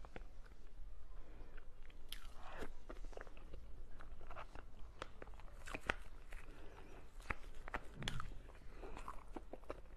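Close-miked eating sounds of a soft purple cream dessert: wet chewing and mouth noises with many small clicks, and a spoon scooping from a plastic tub near the end.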